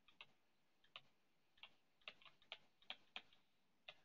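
Stylus tapping on a tablet touchscreen while block capitals are handwritten: about a dozen faint, short clicks at an uneven pace.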